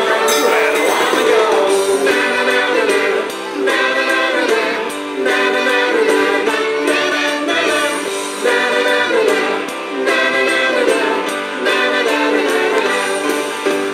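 Christian worship song playing: voices singing over instruments in phrases of a second or two.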